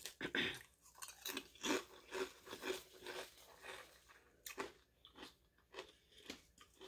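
A person chewing crunchy jalapeño potato chips with the mouth closed, a crunching chew about twice a second with a brief pause partway through.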